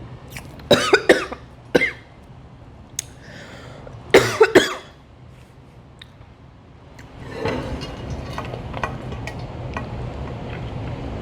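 A woman coughing: a cluster of sharp coughs about a second in and another about four seconds in. This is followed from about seven seconds by a lower steady noise with small clicks.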